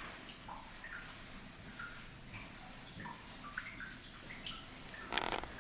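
Water dripping into the geothermal pool of a lava cave: scattered, faint plinks of drops at different pitches, echoing slightly in the small rock chamber. A brief, louder scuffing noise comes near the end.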